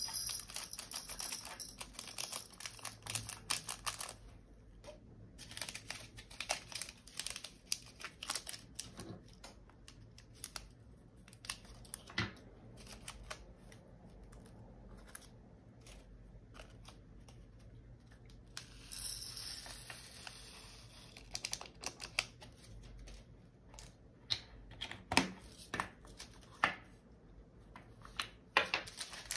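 Diamond painting kitting up: irregular clicks and taps of small plastic storage containers, with crinkling of plastic drill bags in short rustling spells near the start and about two-thirds of the way in.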